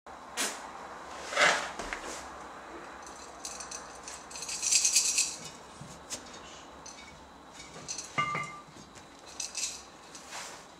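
Kitten scrabbling about inside a glazed ceramic jar: claws and paws knocking and scraping on its walls. There are several separate knocks, the loudest about one and a half seconds in, and a scratchy rattling burst around the middle.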